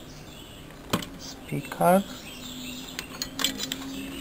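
A few sharp clicks and light rattles of wires and connectors being handled on a CRT television's circuit board, over a faint steady low hum that sets in about halfway through.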